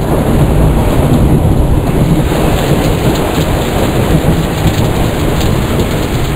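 Heavy rain pouring steadily during a thunderstorm, with a continuous low rumble of thunder under it.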